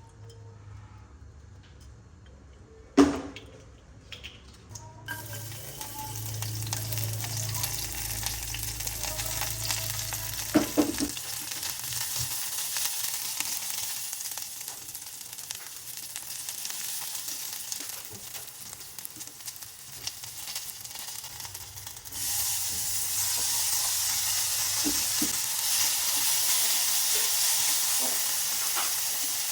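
Food frying in hot oil in a pan, a steady sizzle that starts about five seconds in and gets louder about 22 seconds in. A sharp knock comes about three seconds in, and a low hum runs under the first ten seconds or so.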